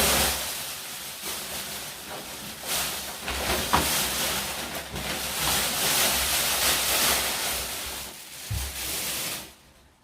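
Rustling and scraping while a large trainer rocker board is unpacked and handled on the floor: an uneven hiss of packing material, with a sharp knock about four seconds in and a couple of low thumps near the end before it stops suddenly.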